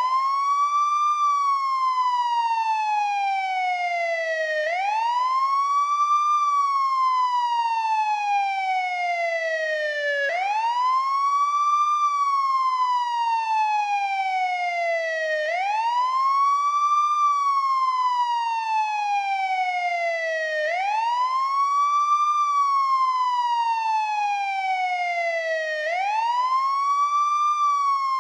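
American police siren sounding its wail tone. The pitch rises quickly, then falls slowly, repeating about every five seconds.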